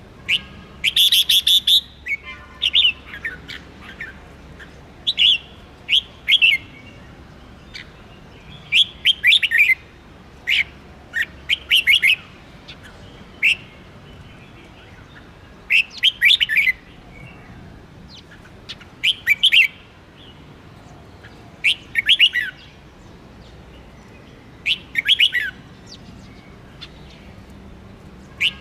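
Red-whiskered bulbul singing short, quick phrases of chirping notes, one every two to three seconds, with brief pauses between.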